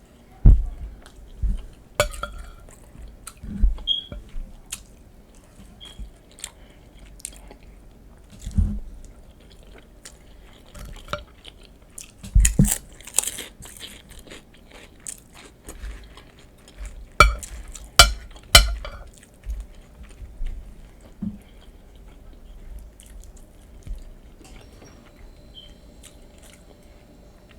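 Close-miked eating of nachos: irregular chewing and crunching, with scattered sharp clicks and low thumps. The loudest come about halfway through and again about two-thirds of the way in.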